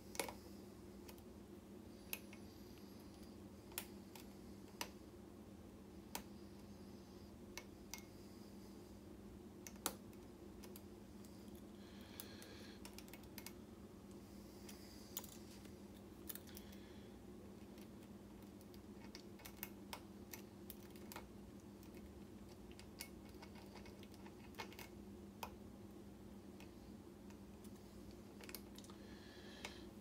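Irregular light clicks and scrapes of a hook pick and tension tool working the pins of a pin-tumbler lock, over a faint steady hum.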